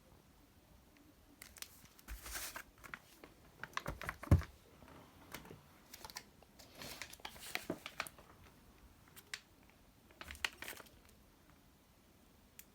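Fireworks packaging being handled: plastic wrap crinkling and cardboard boxes tapping and rustling in irregular bursts. One louder thump comes about four seconds in, like a box being set down.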